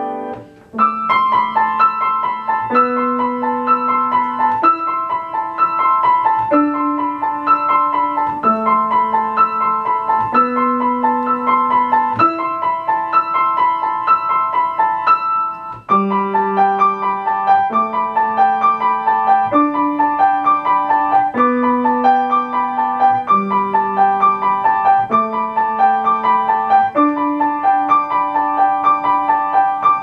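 Solo grand piano played in a flowing, even stream of quick notes over lower notes that change about every two seconds. The playing dips briefly just after the start and again about halfway through, then carries on.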